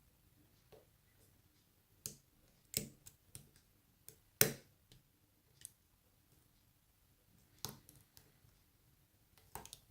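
Scattered light clicks of a pick working the pin stack of an Abus 83CS/50 padlock while it is held under tension, with a louder click about four and a half seconds in.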